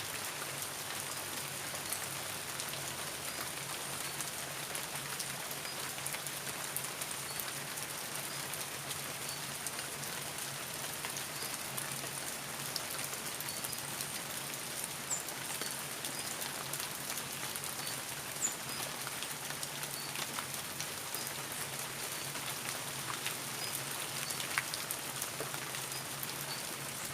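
Steady rain falling, with many individual drops ticking. Faint short high peeps recur every second or two behind it.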